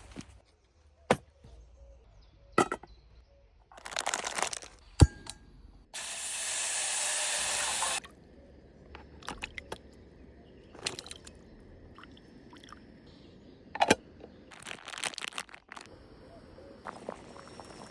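A run of cooking sounds: a few sharp clicks and knocks, short rustling bursts, and a steady hiss lasting about two seconds, roughly six seconds in.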